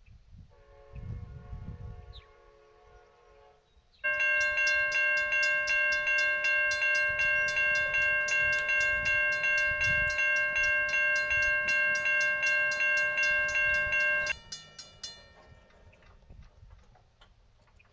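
A train horn sounds a chord for about three seconds. Then a railroad crossing bell starts ringing in quick, steady strikes, about three a second, as the crossing activates and the gates come down. The bell runs about ten seconds, stops suddenly and briefly rings out.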